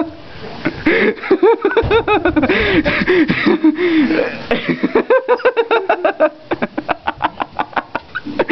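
Human voice doing a turkey-gobble imitation in rapid warbling bursts, mixed with laughter.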